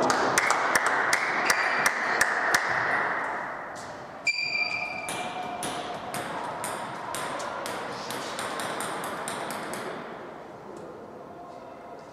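Table tennis balls clicking off bats and tables: a quick run of sharp clicks in the first few seconds, sparser clicks after. A short high squeal comes about four seconds in.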